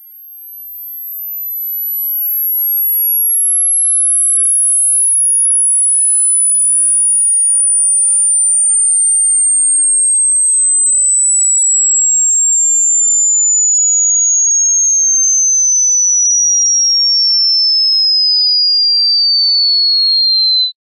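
Hearing-test sweep: a single pure electronic tone falling slowly from a very high, piercing pitch to a lower but still high pitch in small steps, to find the highest pitch the listener can hear. It fades in over the first few seconds, holds steady and loud, and cuts off suddenly near the end.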